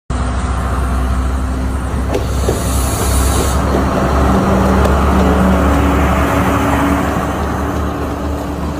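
Train running, a steady low rumble with engine tones, with a brief hiss about three seconds in.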